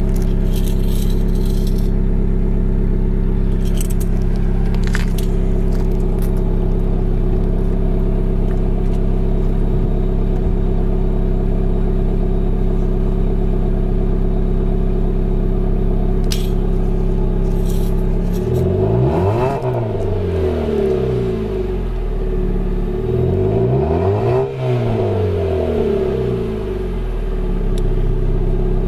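Car engine idling steadily through its stock exhaust, with no whistle fitted. It is revved up and back down twice in the second half.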